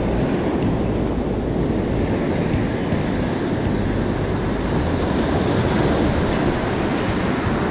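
Steady rush of ocean surf breaking on a rocky shore, with wind buffeting the microphone, swelling a little about six seconds in.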